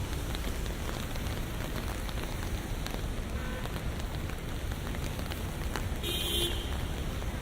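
Rain falling on city streets with a steady low traffic rumble and scattered ticks of drops. A brief high sound stands out about six seconds in.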